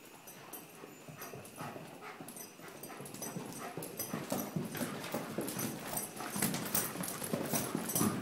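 Hoofbeats of a ridden Tennessee Walking Horse on a barn aisle floor: a quick run of clip-clops that grows steadily louder as the horse comes closer.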